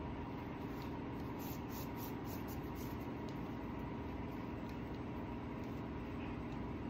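Steady low machine hum with a soft hiss: room tone, with a few faint light ticks between about one and three seconds in.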